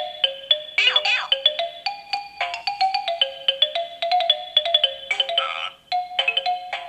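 Carousel Chunky Laptop baby toy playing a fast, beeping electronic tune through its small speaker. About a second in, a quick falling swoop cuts across the tune, and a short noisy sound effect comes around five seconds in.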